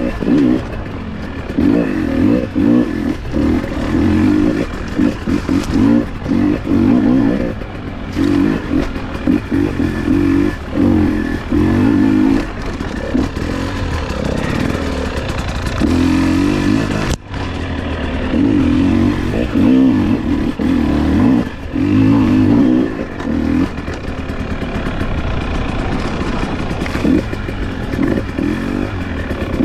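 Off-road motorcycle engine revving in repeated short bursts, on and off the throttle, as the bike is ridden along a trail.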